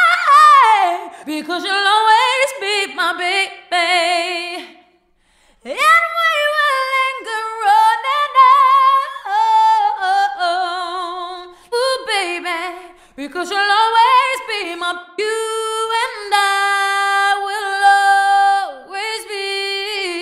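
A woman's voice singing solo with no accompaniment, in a live pop vocal. It moves through fast melismatic runs and wavering trills, breaks off for about a second roughly five seconds in, and holds a long steady note near the end.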